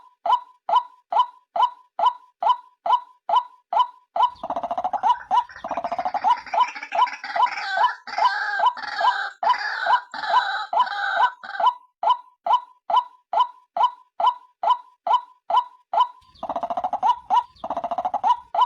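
White-breasted waterhen (ruak-ruak) lure call: a rapid, even series of short falling notes, about three a second. From about four seconds in to about twelve, and again near the end, harsher overlapping calls join in, making a dense chattering chorus.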